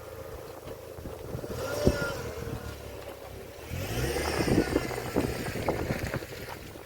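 Wind noise on the microphone over a low rumble, with scattered knocks and two stronger gusts, the second and longer one a little after the middle.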